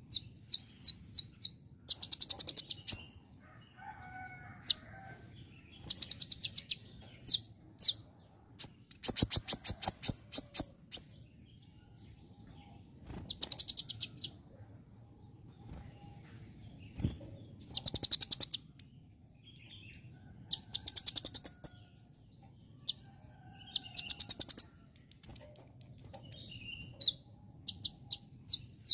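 Male Van Hasselt's sunbird (kolibri ninja) singing loudly: bursts of very fast, high-pitched repeated notes about a second long, with single sharp chirps in between. The song is delivered in the style of a bar-winged prinia (ciblek).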